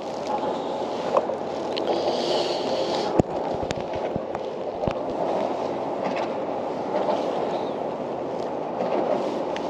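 Water lapping and gurgling against a plastic kayak hull, with a few sharp clicks and knocks about three to five seconds in.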